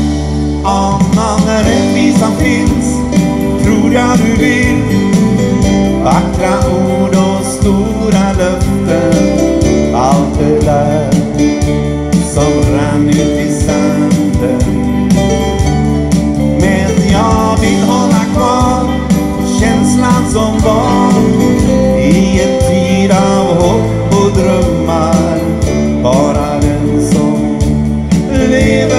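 Live rock trio playing a song on drum kit, electric guitar and bass guitar, with a steady beat and a lead line of bending notes on top.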